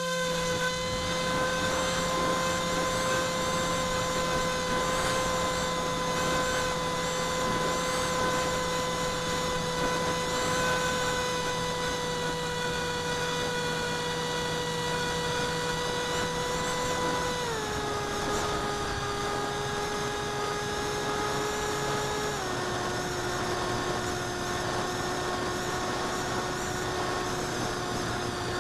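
Electric motor and propeller of a small foam flying wing whining steadily in flight, with a rushing hiss of air underneath. The pitch steps down about 17 seconds in and again about 22 seconds in as the throttle is eased back.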